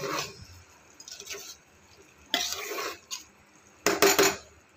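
Metal spoon scraping and clinking against the inside of a pressure cooker while stirring cooked rice, in a few short bouts, the last one near the end the loudest.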